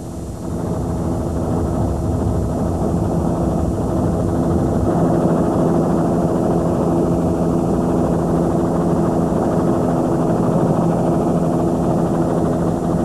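Helicopter running steadily overhead: a constant drone of engine and rotor with a steady hum of several tones. It swells up over about the first second, then holds level.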